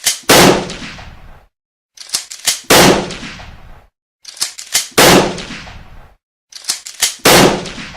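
Shotgun firing four single shots about two and a half seconds apart, each shot preceded by a few short quick clicks and followed by about a second of dying echo.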